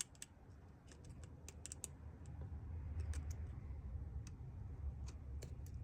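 Light, scattered clicks and taps of small repair tools and parts being handled on a smartphone's insides, over a steady low hum.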